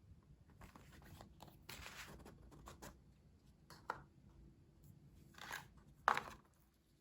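Paper and cardboard packaging being handled and opened: a few short rustles and scrapes, the loudest about six seconds in.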